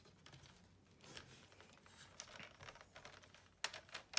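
Faint plastic clicking and tapping as the snap-together plastic display cover of a Toshiba laptop is handled and pressed into place, with a few sharper, louder clicks near the end.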